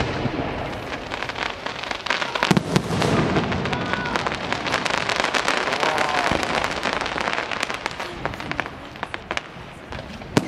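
Fireworks display: aerial shells bursting, with a sharp bang about two and a half seconds in. Dense rapid cracks and pops follow and thin out toward the end.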